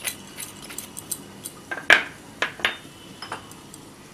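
A teaspoon clinking and tapping against a small bowl or dish as spice powder is measured out: irregular light clinks, the loudest about two seconds in.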